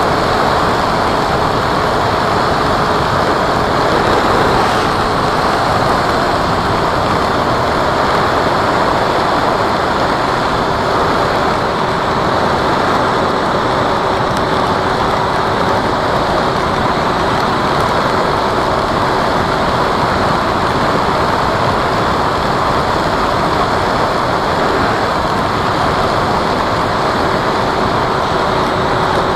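Radio-controlled model Cessna in flight: a steady, even rush of air and motor-propeller noise with a faint steady hum underneath.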